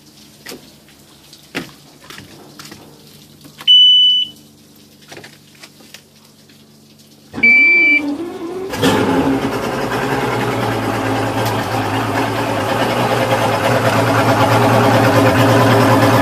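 Two short electronic beeps about four seconds apart, the second with the starter briefly cranking. Then a 2003 Mercury 135 Optimax DFI V6 two-stroke outboard fires and runs at a steady idle that builds slightly.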